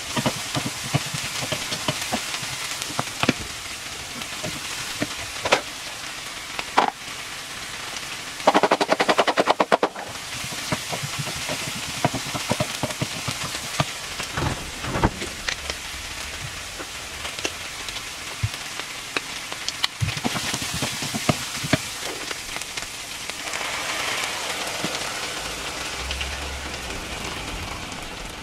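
Shrimp and chopped onion sizzling in a non-stick frying pan, a steady hiss with many sharp pops and crackles, and a wooden spoon stirring and scraping the pan.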